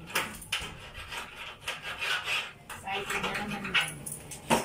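Irregular rubbing and scraping with scattered short knocks, the sharpest knock near the end.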